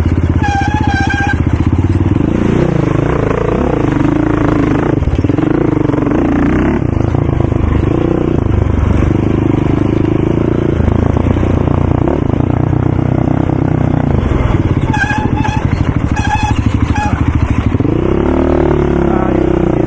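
ATV engine running loud and continuous, its revs rising and falling as the quad is ridden.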